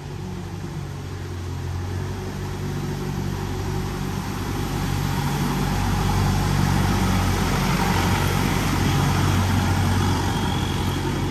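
Longtail boat engine running as the boat comes along the canal, growing louder over the first several seconds and then holding steady, with the wash of its wake.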